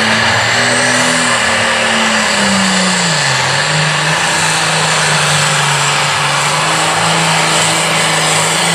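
Pro farm class pulling tractor's diesel engine running loud, its pitch dipping about three seconds in and then holding steady.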